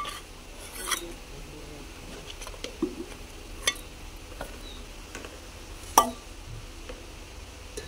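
A steel spoon tapping and scraping a plastic container and a steel cooking pot while pounded red chillies are emptied into the pot. It gives a few separate sharp clinks, the loudest about six seconds in.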